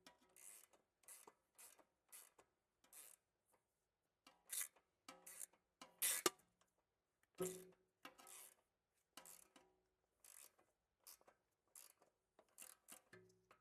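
Faint, irregular short metallic scrapes and clicks of hand tools being worked on a car's suspension bolts, a quick burst every half second or so, with a few louder knocks around the middle.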